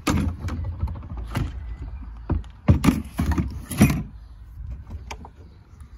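A handful of sharp knocks and clunks, loudest in a cluster around three to four seconds in, over a low rumble of handling or wind noise on the microphone.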